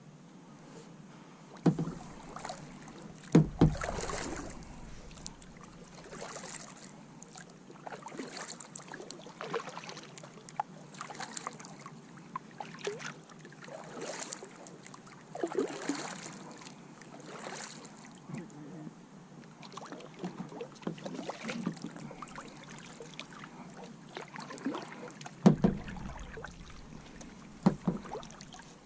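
Kayak paddle strokes in the water, a splashing stroke about every second or two, with a few hard knocks near the start and near the end.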